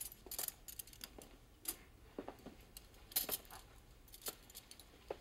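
Silverware and dishes clinking as a dinner table is cleared: a scatter of light, sharp clinks.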